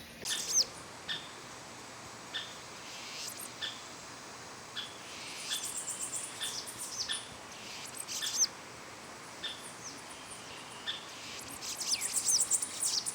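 Tropical rainforest birds and insects calling: a short high note repeats about once a second, with quicker high chirps, trills and falling whistles scattered around it.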